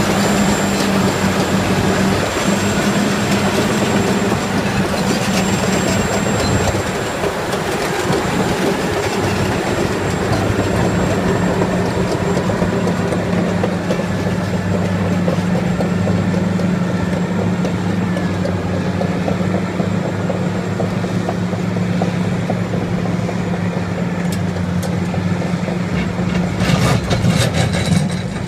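Caterpillar crawler dozer's diesel engine running steadily under load as its single-shank ripper tears through rocky ground, with the clatter of the steel tracks, sharper for a moment near the end.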